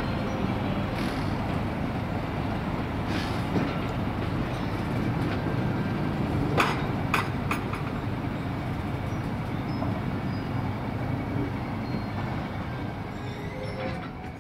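Heritage passenger train running, heard from on board the coaches: a steady low rumble, with a couple of sharp clicks about halfway through.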